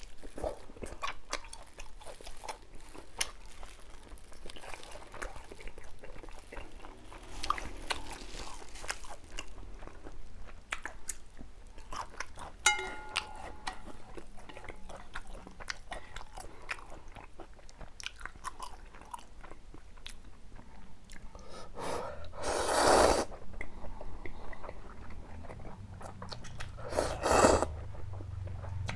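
Close-miked chewing and biting while eating tomahawk steak and Buldak spicy fried noodles, with many small wet clicks and mouth noises. Two louder noisy bursts come near the end.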